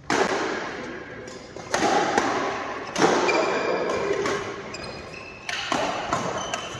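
A badminton rally in an echoing indoor hall: badminton rackets hitting the shuttlecock, several sharp hits at uneven intervals of roughly half a second to two and a half seconds, each ringing on in the hall's reverberation.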